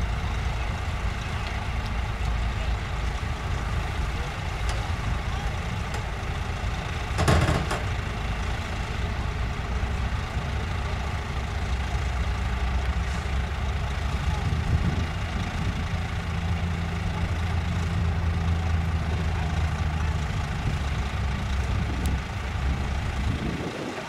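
Heavy dump truck's diesel engine running steadily while the raised bed tips its load of dirt, its hum growing steadier and stronger about halfway through. A short burst of hiss about seven seconds in.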